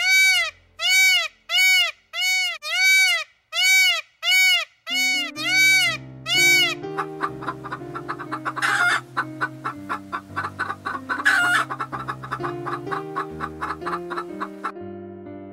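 A peafowl giving a run of about ten short calls in quick, even succession, each rising and falling in pitch. Music comes in under them, then plays over a busy chatter of small bird chirps and clicks.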